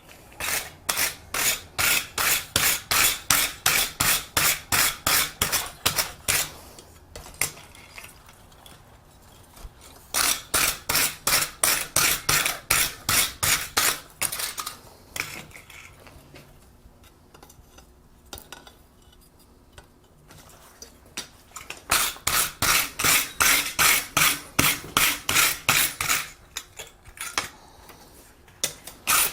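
Wire brush scrubbed back and forth on hot forged steel, about three strokes a second, in three bouts with short pauses between, brushing the metal after heating it to a dull red to clean off scale and finish the surface.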